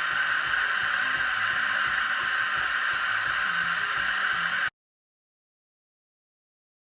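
Philips 3200 LatteGo espresso machine running while preparing a latte macchiato: a loud, steady hiss with a fast throbbing pulse of its pump underneath. It cuts off abruptly about four and a half seconds in.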